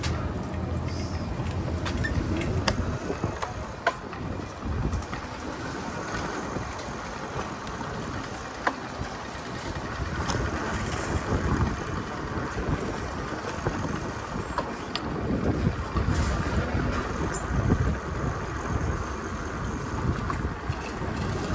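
Traffic and street noise heard from a moving bicycle, with wind buffeting the microphone as a fluctuating low rumble and a few sharp clicks and rattles along the way.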